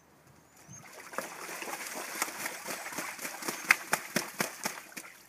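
Domestic goose bathing in a shallow metal tub of water, splashing hard with its body and wings. The splashing starts about a second in and dies away just before the end.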